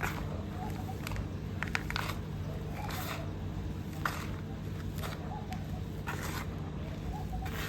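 Crisp crunching of dry, crumbly baked clay being bitten and chewed close to the microphone. There is a sharp crunch every second or so, over a steady low hum.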